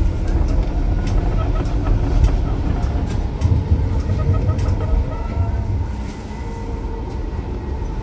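Frankfurt R-type tram riding along the track, heard from inside the car: a steady heavy rumble of wheels on rail, with scattered sharp clicks and a faint steady motor tone.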